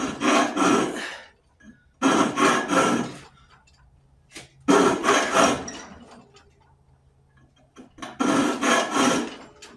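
Hand file rasping over cast aluminium, smoothing the cast teeth of a skull air cleaner. It comes in four spells of strokes, each about a second long, with short pauses between.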